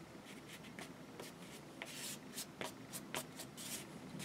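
Watercolour paintbrush rubbing and dabbing on paper: faint scratchy brushing with a few short soft ticks.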